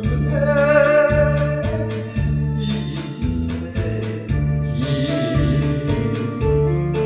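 Pop song backing music with a steady beat and a repeating bass line; a singer holds a note with vibrato in the first second or so, then the accompaniment carries on.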